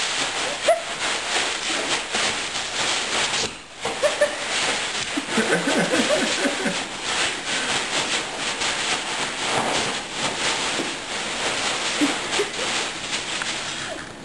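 A bean bag rustling and crunching under a dog as it circles and paws on it, pausing briefly about four seconds in and dying down near the end as the dog settles.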